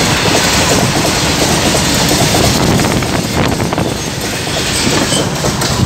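Loaded goods train of covered wagons rolling past at close range: a loud, steady noise of wheels and wagons running on the rails.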